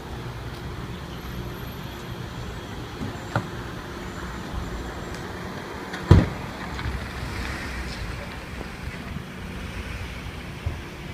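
Truck engine running steadily, with a short knock a few seconds in and one loud, sharp bang about six seconds in.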